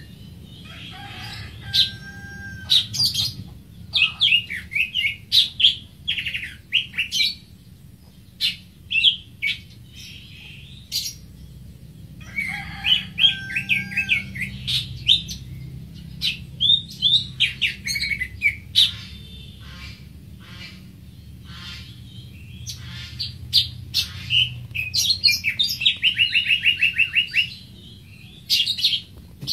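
Greater green leafbird singing: bursts of quick, varied chirping notes separated by short pauses, with a rapid, even trill a couple of seconds before the end.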